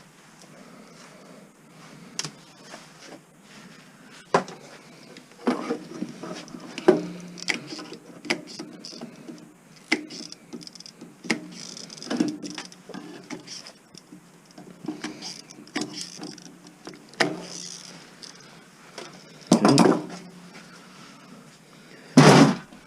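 Irregular clicks, knocks and clatter of parts being handled while an Aiwa stereo mini system is dismantled by hand, with two louder knocks near the end.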